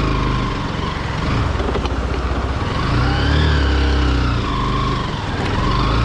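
Single-cylinder Bajaj Pulsar motorcycle engine running at low revs on a rough rocky track, its pitch rising and falling a couple of times.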